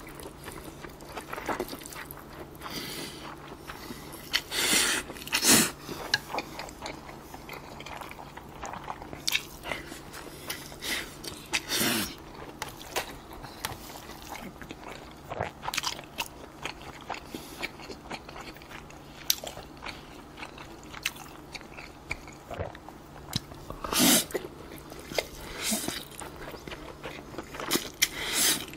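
A person eating spicy cold bibim-myeon noodles with beef brisket close to the microphone: wet slurps of noodles and chewing. A few louder, longer slurps come about 5 s, 12 s and 24 s in.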